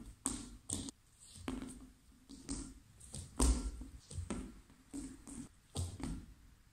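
Bare heels and hands repeatedly striking a small ball: irregular sharp taps with soft thuds, about one or two a second.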